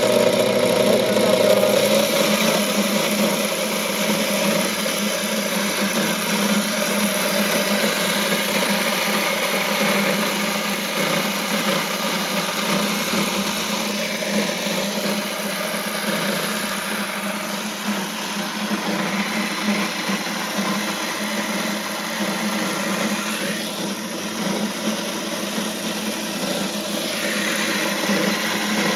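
Vevor 3000 W electric grain mill running and grinding whole deer corn into chicken feed: a steady, loud mechanical whir of motor and grinding. It is a little louder for the first couple of seconds, then settles.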